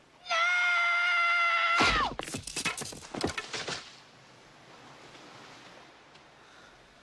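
A boy's long, steady scream, held on one high pitch and dropping as it breaks off, followed by a heavy thud and a quick run of sharp knocks; then only a faint hiss.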